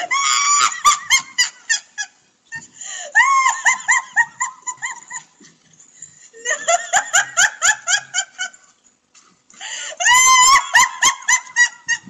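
A woman laughing hard in four high-pitched bouts of rapid, stuttering laughter, each about two seconds long, with short pauses between them.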